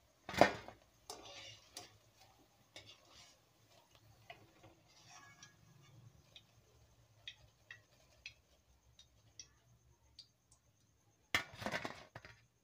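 Wire spider strainer knocking and scraping against a metal wok while fried cauliflower is lifted out of the oil: one loud clank about half a second in, then scattered light clicks and taps. Near the end comes a short burst of clattering as the strainer meets a metal plate.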